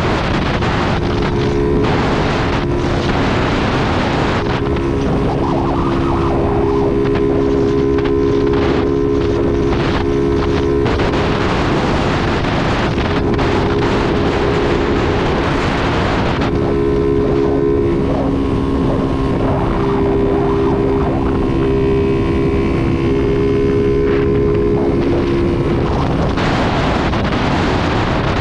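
Motorcycle engine running at a steady cruise with wind buffeting the microphone. Gusts of wind noise swell several times and briefly drown the engine note.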